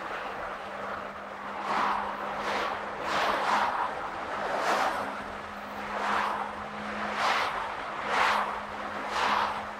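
Car driving: steady road and engine hum with a run of whooshing swells about once a second.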